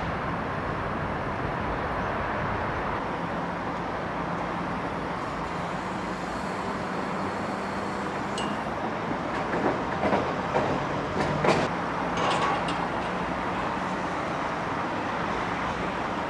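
Construction site noise: a steady machine drone with a low hum, broken by a short run of sharp knocks and clanks about ten to twelve seconds in.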